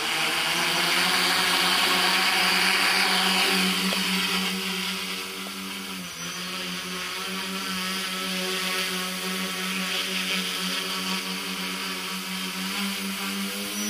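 Tricopter's three electric motors and propellers whirring with a steady hum over a rushing hiss as it lifts off the grass and hovers low. The pitch rises slightly near the end.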